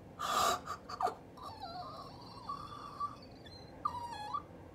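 A sharp breathy gasp, then high, wavering squeaky whimpering sounds from a person's voice, an excited reaction to pulling a VMAX card.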